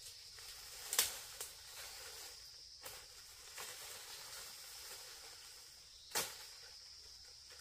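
Steady high insect drone in the forest, with two sharp knocks, one about a second in and one about six seconds in, and a few fainter clicks between them.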